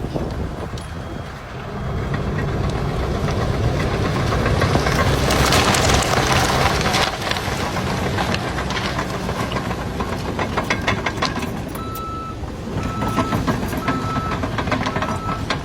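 Heavy truck engine running with a steady low rumble, swelling louder for a few seconds midway; near the end a backup alarm beeps four times, about once a second.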